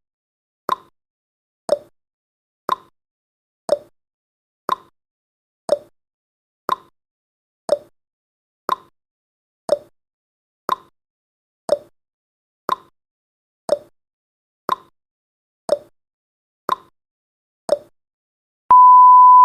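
Countdown timer's ticking sound effect, one sharp tick a second, alternating higher and lower like a clock's tick-tock. Near the end a steady, loud beep starts as the countdown reaches zero.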